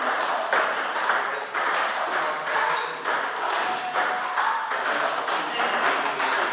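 Table tennis ball being hit back and forth in a rally: a run of short, sharp clicks of the ball off the bats and the table, several a second at an uneven pace.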